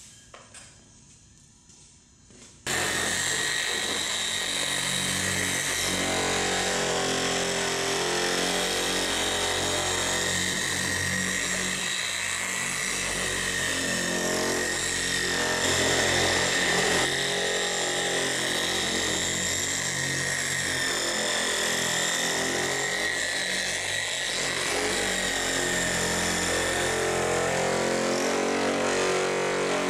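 Electric orbital polisher running steadily with a foam pad on a car's painted trunk lid, starting abruptly about three seconds in and holding a steady whine.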